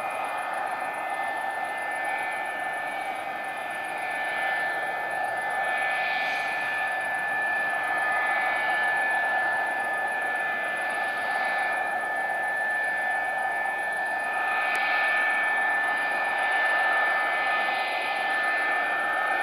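McDonnell Douglas MD-82's two rear-mounted Pratt & Whitney JT8D turbofans running steadily as the jet lines up on the runway: a rushing hum under a high, steady whine that barely changes in pitch.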